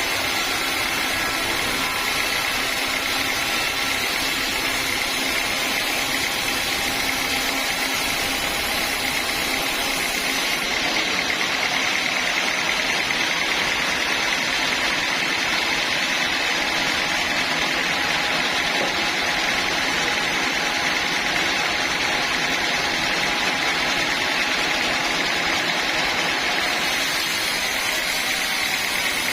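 Sawmill saw machinery running steadily with a continuous, even noise.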